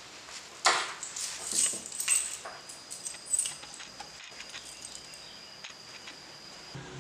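A bunch of keys picked up off a wooden table with a sharp clack, then jingling in the hand for two or three seconds.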